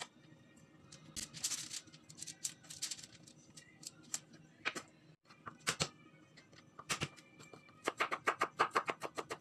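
Chef's knife chopping garlic on a wooden cutting board: a fast, even run of sharp chops, about five a second, starting near the end. Before it come scattered clicks and rustles as slices are handled on a foil-lined baking tray, over faint background music.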